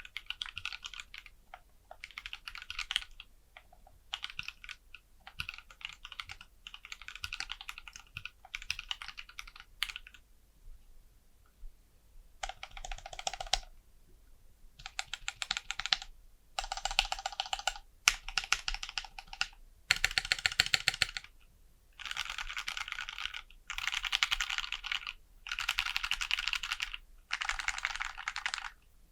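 Anne Pro 2 60% mechanical keyboard, in an aluminium case with custom keycaps, being typed on in runs of fast clicking keystrokes with short pauses between them. From about twelve seconds in the typing comes in tighter bursts of about a second each.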